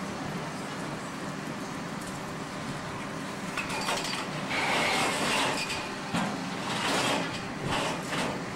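An engine running steadily under the work of a circus tent teardown, with louder bursts of scraping and rustling from about three and a half seconds in.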